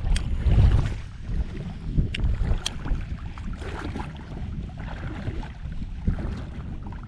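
Wind rumbling on the action camera's microphone while water sloshes around a wading angler's legs, with a few sharp ticks in the first three seconds.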